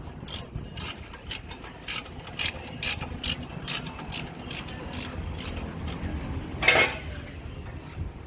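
A ratchet-like mechanism clicking in a steady rhythm, about two clicks a second, over a low hum, with one louder, longer click about seven seconds in.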